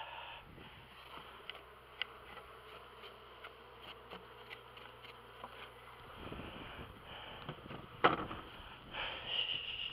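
Honey bees buzzing around an open hive, with a few faint clicks and one sharp knock about eight seconds in.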